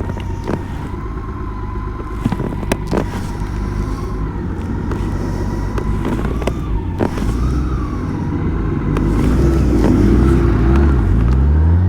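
BMW K1600 GTL's inline-six engine running at low speed, with road and wind rumble. Near the end it revs up as the bike accelerates, its pitch climbing steadily.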